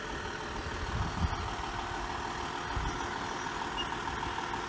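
Volkswagen Touareg engine running steadily at low revs, a low rumble.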